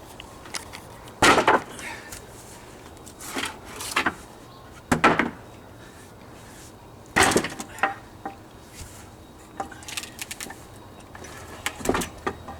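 Hammer blows on the solid wooden frame of an old swing being knocked apart: several loud, sharp knocks at irregular intervals, a second or more apart, with the joints holding firm.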